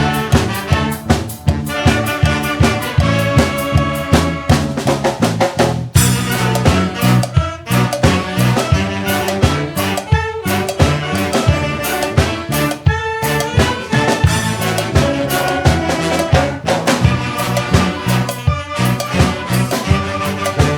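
Upbeat music with brass instruments over a steady, driving beat.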